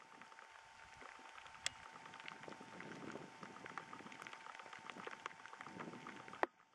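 Thunderstorm rain falling, with many separate raindrops ticking close to the microphone over a steady patter and a faint steady tone underneath. A sharp click near the end, after which the rain sound drops away.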